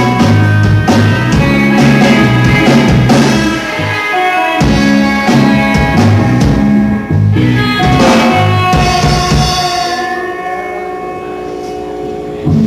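Rock band playing with drum kit, bass and electric guitar. For the last couple of seconds the drums drop out and a single held note rings on, slowly fading.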